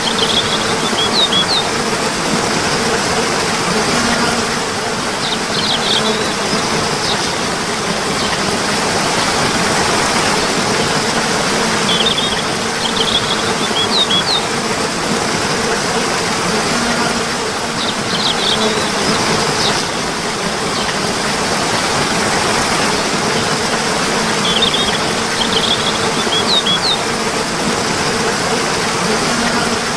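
Steady rushing water with short bursts of bird chirps, a cluster of quick high chirps recurring about every six seconds in the same repeating pattern.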